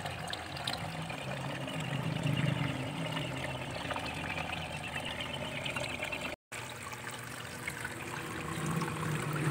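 Water trickling and splashing steadily into a fish tank from a filter return or aerator, with rising bubbles and a low steady hum underneath. The sound breaks off for a moment about two-thirds through.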